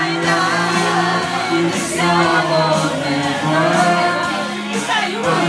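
A man singing into a handheld microphone over a karaoke backing track, holding and sliding between notes.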